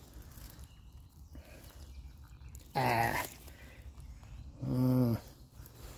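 Two short hummed voice sounds from a man, each about half a second long and about two seconds apart, like a wordless 'hmm' while testing a piece of mushroom.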